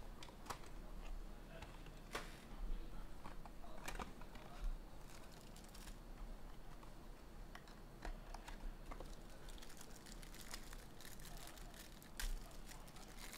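Faint handling of a trading-card box and pack: scattered light clicks and rustles of cardboard and plastic, then a brief run of crinkling near the end as a clear plastic pack wrapper is peeled open.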